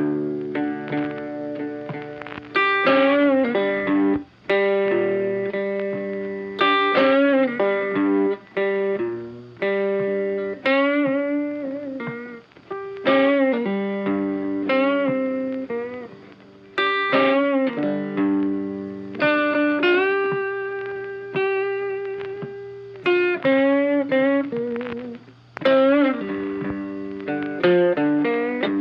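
Funky background music led by guitar, with plucked notes that start sharply and ring out.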